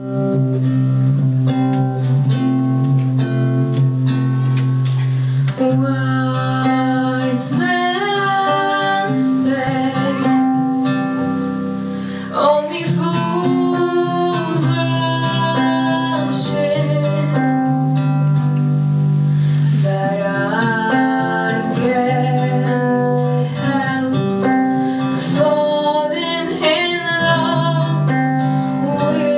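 A woman singing a slow song into a microphone over a guitar accompaniment; the accompaniment plays alone for the first few seconds and the voice comes in about six seconds in.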